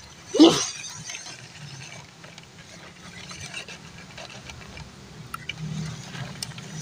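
Small electric RC crawler truck's motor and gears whirring faintly as it crawls over dirt and stones, with scattered small clicks, the whir getting stronger near the end. About half a second in, a brief loud sound sliding down in pitch.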